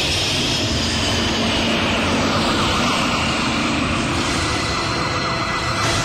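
Hockey arena goal horn sounding over a cheering crowd: a loud, steady din with sustained horn tones.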